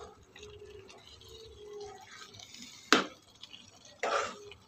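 A steel spoon stirring soaked basmati rice and whole masoor lentils in wet masala inside an aluminium pressure cooker, making soft, wet scraping. About three seconds in, the spoon strikes the cooker with one sharp clink, and a short scrape follows about a second later.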